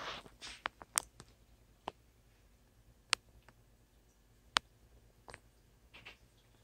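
Quiet room tone broken by a handful of sharp, isolated clicks spaced irregularly, a second or more apart.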